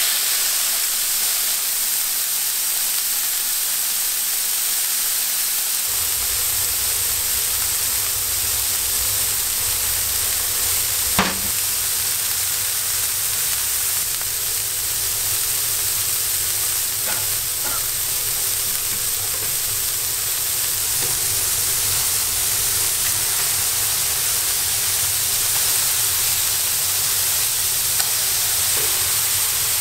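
Smashed ground-beef patties sizzling on a hot flat-top griddle: a steady frying hiss. A single sharp knock comes about eleven seconds in, and a low rumble joins about six seconds in.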